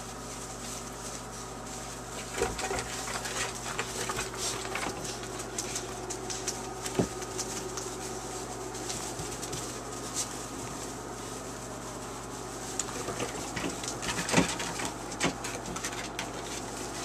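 Young puppies scuffling and tugging at a toy in loose wood shavings: rustling and scratching with scattered sharp clicks, the loudest about two and a half, seven and fourteen seconds in.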